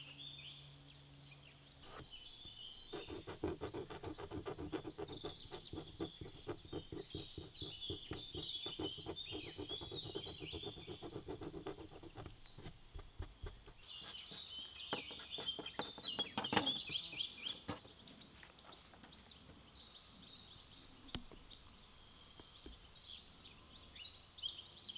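Swiss Army knife's small blade scraping rapidly back and forth over paper, erasing a typing mistake, in fast even strokes that run for several seconds, stop, and start again briefly. Birds chirp throughout.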